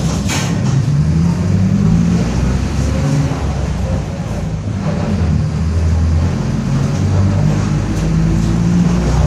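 Mercedes-Benz OF-1722M bus running under way, its engine note rising and falling, with the differential growling.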